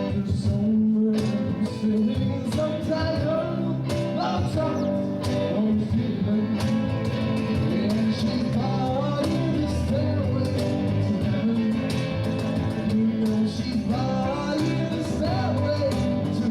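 Live rock band playing an instrumental passage, with guitar over bass and regular drum hits.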